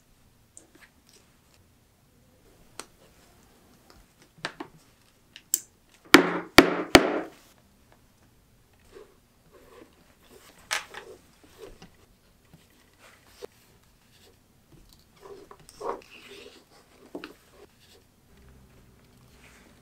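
Small clicks of brass rivets and strap hardware being handled and fitted to a leather strap. Three sharp knocks in quick succession about six seconds in, from a hammer striking a rivet setter.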